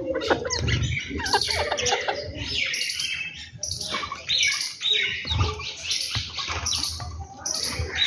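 Small songbirds chirping busily: a dense, unbroken run of short high chirps, with occasional low thuds.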